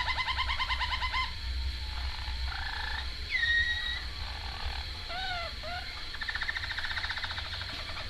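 Harz Roller canary singing its rolling song: a rapid trill that stops about a second in, then a held whistled note, two short swooping notes, and another fast trill near the end.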